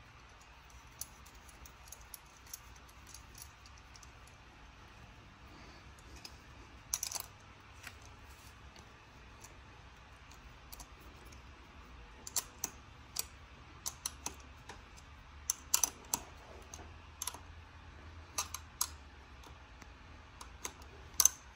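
Irregular small clicks and taps of a screw and nut being fitted and tightened on a metal headlight mount clamp, sparse at first and coming more often in the second half.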